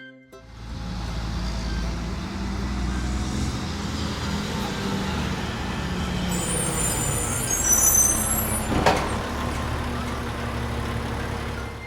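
Garbage truck engine running steadily, with a brief high squeal about two-thirds of the way through and a sharp clank a little later.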